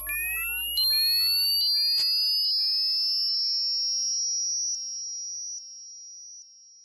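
Synthesized DJ siren effect: short rising electronic tones repeating as echoes over a long, slowly rising high whine, fading away in steps.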